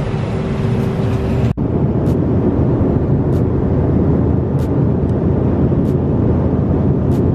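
Airliner cabin noise in flight: a steady, loud rush of engine and airflow, heaviest in the low end. About a second and a half in, the sound cuts out for an instant and resumes. After that, faint ticks recur about every second and a quarter.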